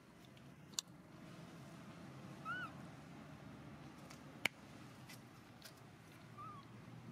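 Two short squeaky animal calls, each rising then falling in pitch, about four seconds apart, and two sharp clicks, the louder one about halfway through, over faint background noise.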